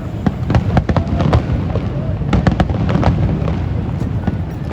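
Fireworks display: a rapid, unbroken string of bangs and crackles over a continuous low rumble.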